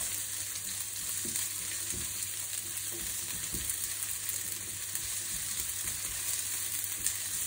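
Chopped onions with chana dal, mustard seeds, ginger and green chilli sizzling in a mix of oil and ghee in a frying pan, stirred with a spatula: a steady hiss with soft, irregular scrapes of the spatula. The onions are being softened until translucent, without colour.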